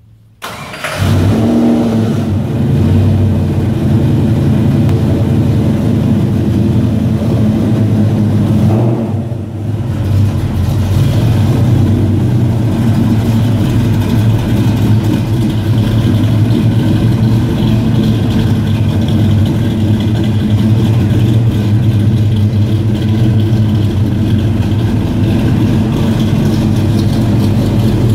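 1955 Chevrolet 3100 pickup's engine starting up about half a second in, then running steadily, with a brief dip in level around nine seconds.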